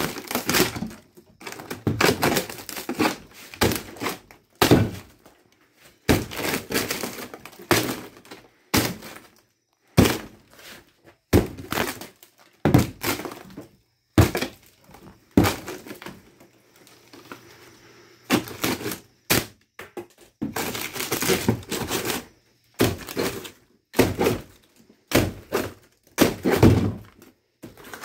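Camper wall being demolished by hand with a long metal tool: dozens of irregular hard thunks as it strikes, with wood cracking and breaking apart and debris falling between blows. There is a short lull a little past halfway.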